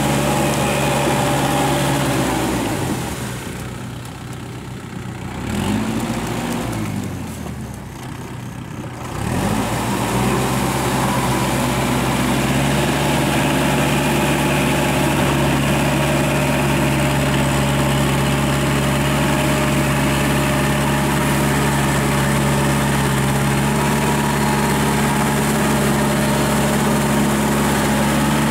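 Kubota L5018 tractor's diesel engine running steadily under load while driving a Maschio rotary tiller through paddy mud. A few seconds in, the engine sound drops in level and its pitch sags and comes back up twice, then it settles back to a steady run.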